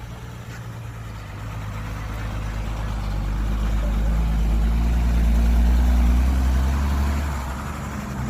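Heavy diesel engine of a construction vehicle such as a dump truck running and building up: it grows louder from about two seconds in, is loudest around six seconds, then eases off near the end.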